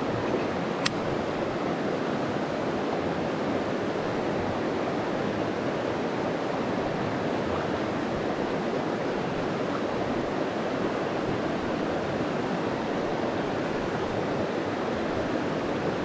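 Fast-flowing mountain stream rushing steadily, with a single sharp click about a second in.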